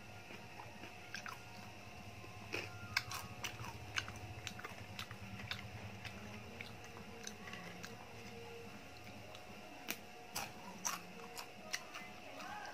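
Crunchy potato snack being bitten and chewed close to the microphone, with sharp crunches scattered irregularly throughout.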